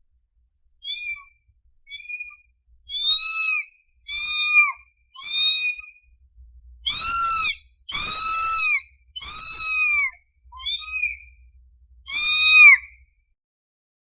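Young kitten meowing over and over, about ten high-pitched calls roughly a second apart, each rising then falling in pitch, loudest in the middle. These are the insistent cries of a hungry kitten calling for its mother.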